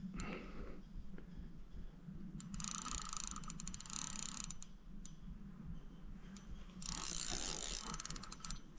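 Fishing reel ratcheting with rapid fine clicks in a few bursts of about two seconds each, while a hooked carp is being played on the line.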